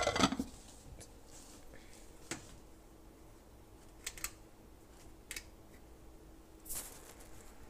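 Handling clatter on a kitchen counter: a short burst of knocks at the very start, then a few sharp single clicks spread through, over a faint steady hum.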